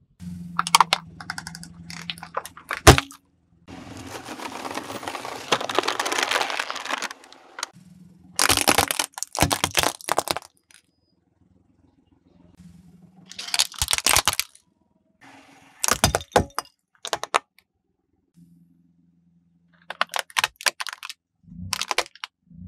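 A car tyre rolling over and crushing plastic objects one after another, a series of sharp cracks and crunches. One stretch of crackling lasts about three seconds, and a low hum runs between some of the crushes.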